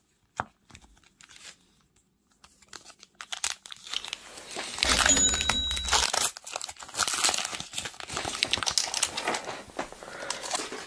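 Foil wrapper of a Pokémon TCG booster pack crinkling and tearing as it is opened by hand, starting about three seconds in and loudest around five to six seconds. A single sharp click comes near the start.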